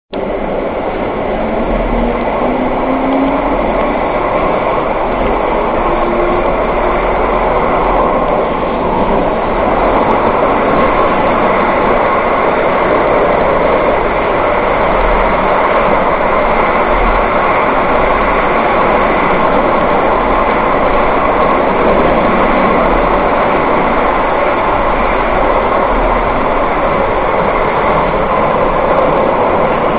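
Seville Metro train running, heard from inside the passenger car: a steady, loud rolling rumble of the wheels on the rails through the tunnel. In the first few seconds a faint whine rises as the train gathers speed.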